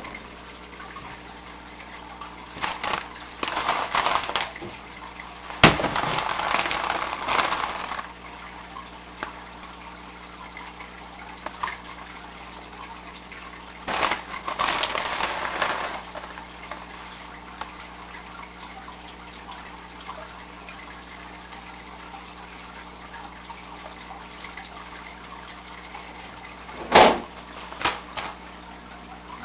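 Oscar cichlids splashing at the water surface as they take food from a hand, in three bursts of a few seconds each, over a steady hum from the aquarium's equipment. A sharp knock sounds about two seconds before the end.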